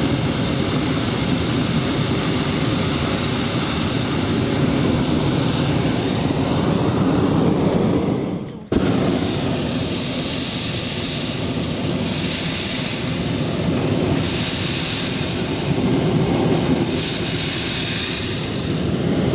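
Hot air balloon's propane burner firing with a loud, steady rushing noise. It fades and drops out just before nine seconds in, then cuts straight back in.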